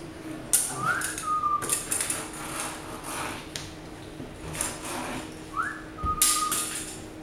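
A whistled call sounds twice: a quick rising swoop, then a short held note. Several short knocks and scraping noises come between and with them, the loudest about half a second in and just after the second whistle.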